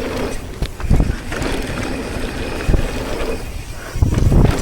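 Mountain bike riding down a dirt jump trail: wind buffeting the microphone and tyres rumbling over the dirt, with heavier thumps about a second in and again near the end.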